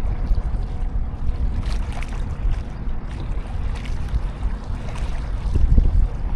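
Wind buffeting the microphone: a steady low rumble that swells near the end, with a few faint ticks over it.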